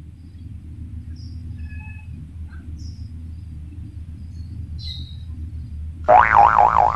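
Sparse, short bird chirps over a low steady rumble. About six seconds in, a loud cartoon-style boing sound effect cuts in suddenly, its pitch wobbling rapidly up and down.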